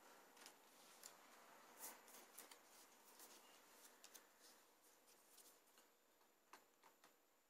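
Near silence with faint clicks and light rustling from hands handling the plastic underside of a laptop, with a few sharper ticks near the end.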